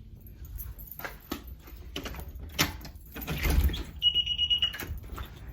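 Clicks, knocks and rustling of things being handled, with a short high electronic beep lasting under a second about four seconds in.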